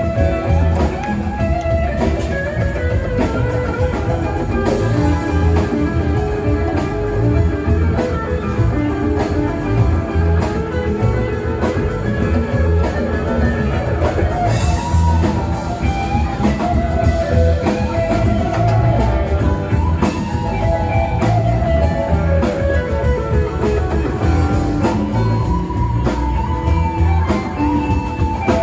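Live rock band playing an instrumental passage: electric guitar lines over bass and drum kit.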